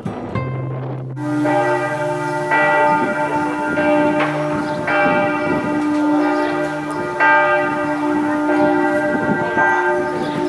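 Church bells ringing: several bells struck at uneven intervals, each stroke ringing on and overlapping the next. They start about a second in, as acoustic guitar music cuts off.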